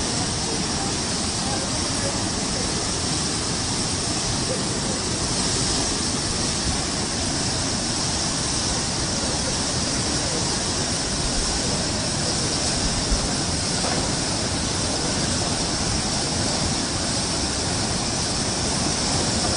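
Swat River in flash flood: muddy floodwater rushing and churning in a steady, unbroken noise.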